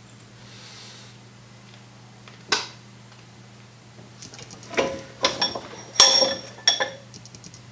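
Cast iron bench vise and a small metal hinge being handled: a single sharp click about two and a half seconds in, then a cluster of sharp, ringing metal clinks and clanks in the second half as the vise is loosened and the straightened hinge is taken out of the jaws. A steady low hum sits underneath.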